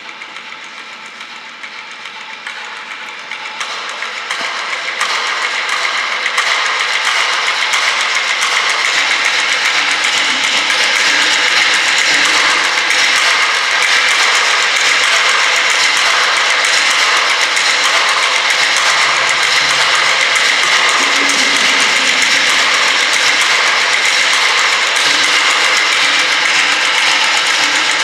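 Three percussionists rubbing and rattling small objects on tabletops make a dense, rapid rattling texture of contemporary music. It swells over the first five or six seconds, then holds steady and loud.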